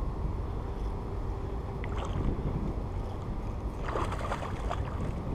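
A hooked speckled trout splashing and thrashing at the water's surface as it is reeled in, starting about four seconds in, over a steady low rumble.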